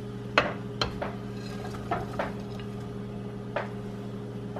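Broccoli florets being tipped into a nonstick frying pan of onions and red peppers: about half a dozen short, light knocks and clatters against the pan over a steady low hum.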